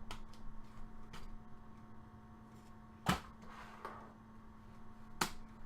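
Trading cards being handled: a few light clicks and taps, two sharper ones about three seconds in and near the end, over a faint steady electrical hum.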